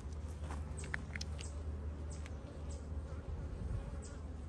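Honey bees buzzing steadily around an opened hive, with a few faint short high clicks.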